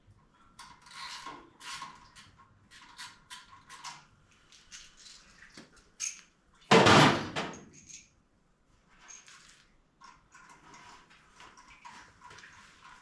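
Hand tools and metal parts clinking, scraping and rattling in irregular short bursts. One much louder clatter comes about seven seconds in.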